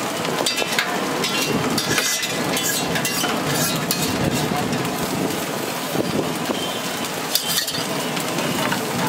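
Scrambled egg rice sizzling on a large flat griddle: a steady frying hiss, with scattered sharp metal clicks and scrapes.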